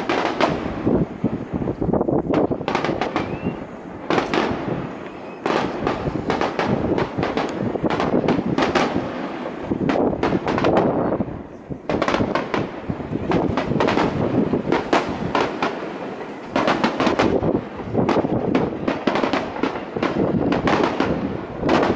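Aerial firework shells bursting in rapid, overlapping volleys, a dense run of bangs and crackling pops that comes in waves. The volleys ease briefly about 11 seconds in and again around 16 seconds, then pick up again.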